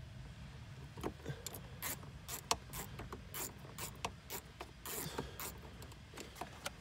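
Self-threading screws being driven by hand into a Kenwood car head unit's mounting bracket, the hand driver giving a series of irregular clicks and ticks.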